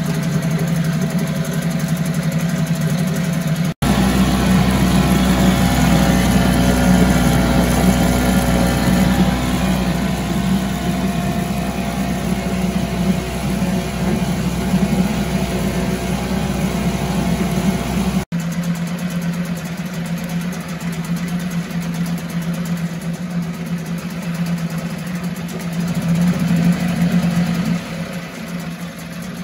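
1974 Mercury 4 hp single-cylinder two-stroke outboard running steadily in a test barrel, sounding healthy: it 'runs like a top'. The level drops near the end.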